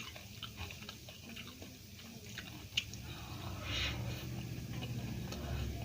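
A person chewing and eating, with many small wet mouth clicks and a brief louder noisy burst just past the middle.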